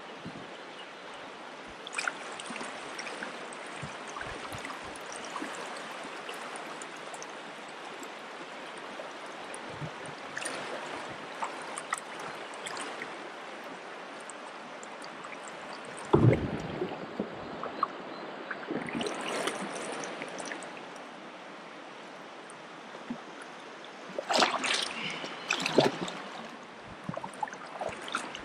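Steady rush of shallow river current over riffles around a kayak, with a kayak paddle splashing and dipping in a loose run of strokes. A strong thump comes a little past halfway, and the splashing picks up again near the end.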